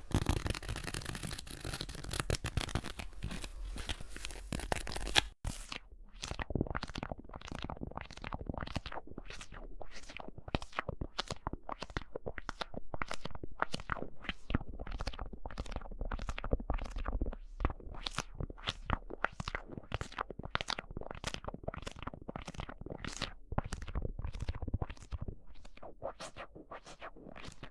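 Close-miked ASMR trigger sounds: about five seconds of dense scratching and crinkling, cut off abruptly, then a long run of short, sharp scratchy strokes at roughly two to three a second.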